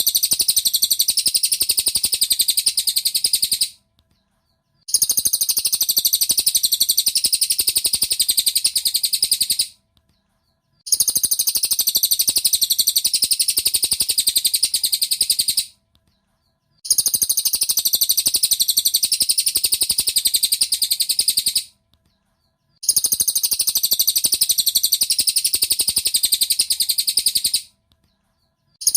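Cililin bird song from a masteran (song-tutor) track: a very fast, high-pitched chattering trill in bursts of about five seconds, each followed by about a second of silence and repeated the same way again and again.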